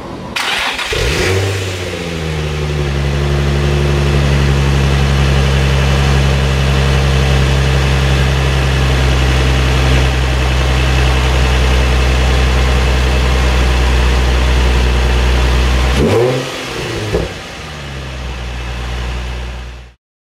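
A 2003 Infiniti G35 sedan's 3.5-litre V6 starts and catches within about a second, then idles steadily. It breathes through a G35x mid-pipe fitted with a Vibrant straight-through resonator in place of the droning Bosal silencer. Near the end the throttle is blipped twice, the pitch rising and falling each time.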